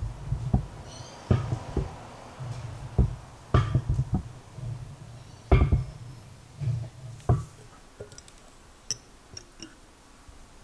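Wooden spoon stirring thick rice mash for doburoku in a glass jar, with irregular knocks of the spoon against the glass, the loudest about five and a half seconds in. Near the end come a few lighter, sharper clicks.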